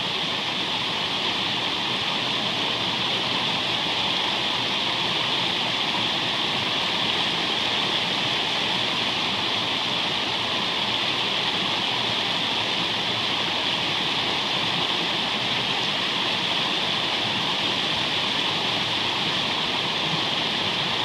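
River water rushing steadily over rocks in a shallow whitewater rapid, a constant roar of falling water.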